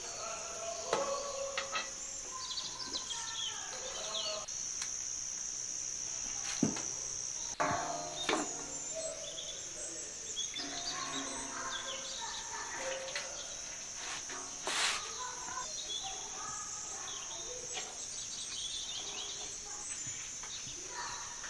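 Crickets chirping in a steady high-pitched chorus, with faint voices and a few sharp clicks in the background.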